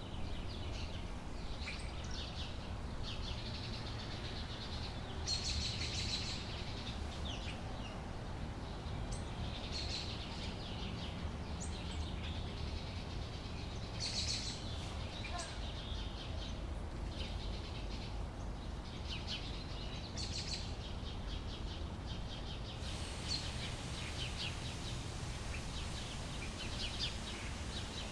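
Outdoor summer daytime ambience: small birds chirping and calling on and off, over a steady low background rumble.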